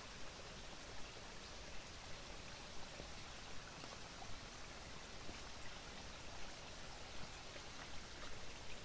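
Shallow forest stream running over stones: a steady wash of water with scattered small splashes.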